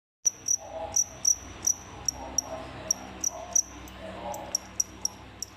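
Feeder cricket chirping: short, high chirps repeating about two to three times a second in an uneven rhythm. This is the loud calling that male crickets make by rubbing their wings together.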